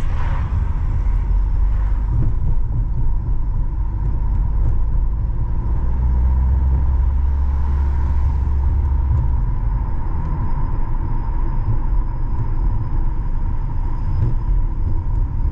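Steady low rumble of road and engine noise from a car driving along a road, with a faint steady whine above it; the rumble swells for a few seconds midway.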